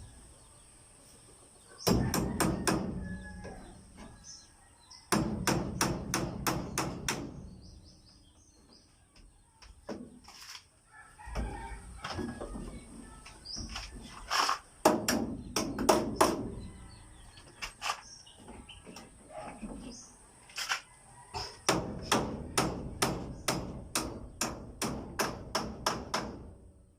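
Hammer driving nails in runs of quick blows, about four a second, with pauses between runs. Chickens call in the background.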